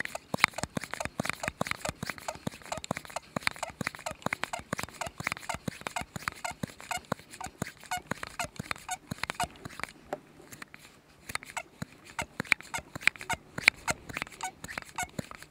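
Plunger of an MSR liquid-fuel pump squeaking in and out in a steady run of quick strokes, about three a second, pressurising the red fuel bottle for an MSR Dragonfly stove.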